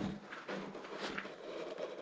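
Irregular soft footsteps and rustling of clothing and gear as someone walks through a brick-lined tunnel.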